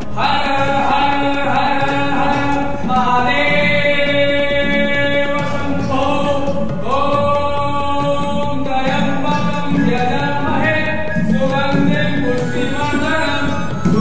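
Devotional singing: a melody of long held sung notes that changes pitch every second or two.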